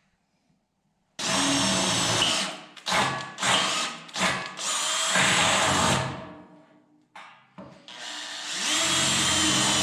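Electric power drill running in a series of bursts, starting and stopping about five times with short pauses between, its motor whining steadily while it runs.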